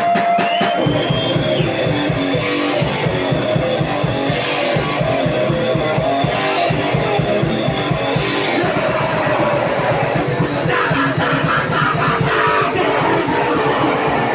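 Live grindcore band playing: heavily distorted electric guitar over fast, pounding drum kit, loud and dense throughout.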